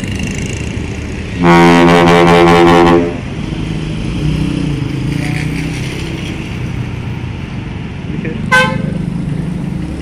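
Intercity bus's ship-style air horn ("klakson kapal") giving one long, steady, deep blast of about a second and a half, starting about a second and a half in, over the running of the bus's engine and road traffic.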